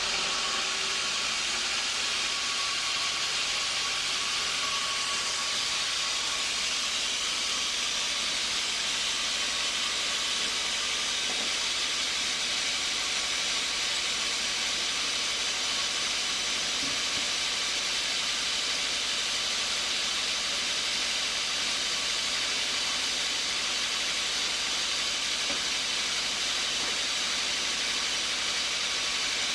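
Steady, unbroken hissing noise of sawmill machinery running, mostly high-pitched with little rumble underneath.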